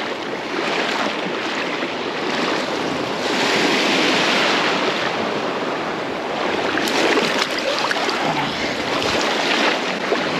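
Shallow seawater sloshing and lapping, with wind on the microphone. The rush swells for a couple of seconds near the middle.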